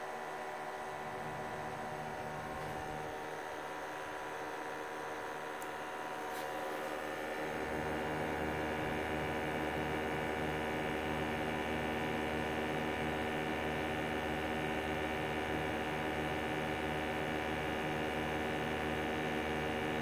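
Steady mechanical hum of small motors running: the propane heater's blower fan and the combustion analyzer's sample pump. About seven seconds in, it grows louder and deeper.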